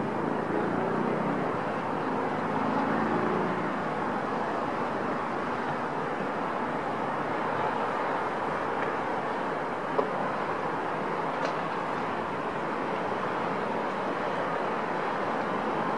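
Steady distant city traffic noise, heard from high above the streets, with a faint pitched drone in the first few seconds and a single sharp click about ten seconds in.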